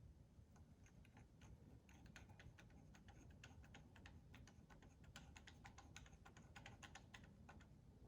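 Faint, irregular light clicks and ticks, several a second, of small screws and a screwdriver being handled as self-tapping screws are started into the mounting holes of a laser engraver's height controller.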